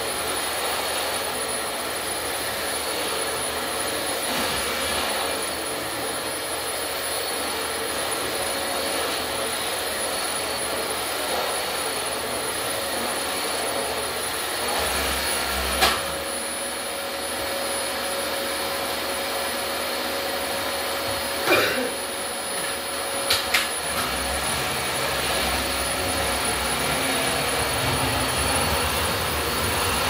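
Dyson DC25 Animal upright vacuum cleaner running with a steady whine. A few short, sharp knocks come through about halfway in.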